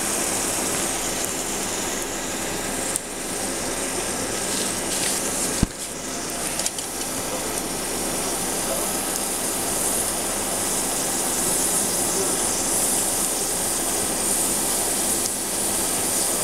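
Steady hiss of liquid nitrogen pouring from a frosted hose and boiling off on the floor. A few sharp knocks cut through, the loudest about five and a half seconds in.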